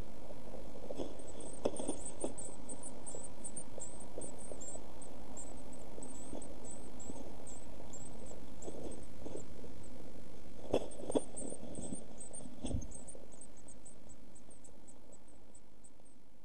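Blue tit chicks in a nest box giving many short, thin, high-pitched begging squeaks, with a few knocks and scrapes of the adult moving in the nest, over a steady hiss; it fades out near the end.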